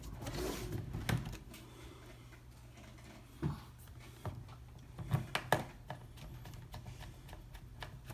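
Scattered small clicks and taps of a hand screwdriver starting screws into a laptop's plastic bottom cover, over a low steady hum.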